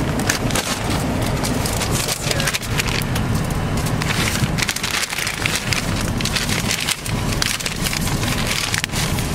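A paper takeout bag being handled close up, rustling and crinkling in a dense run of crackles, over a low steady car-cabin rumble.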